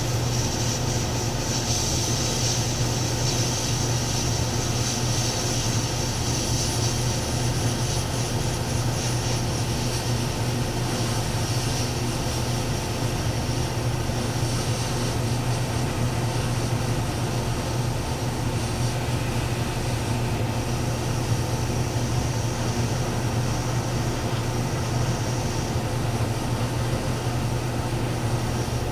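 Airbrush spraying paint at low air pressure: a steady hiss that rises and falls a little, over the constant hum of the air compressor feeding it.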